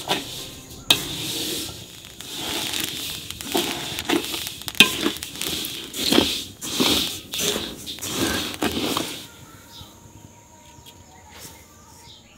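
Wooden spoon stirring sesame seeds as they dry-roast in a metal wok, a run of rasping, rustling scrapes through the seeds that dies down about nine seconds in.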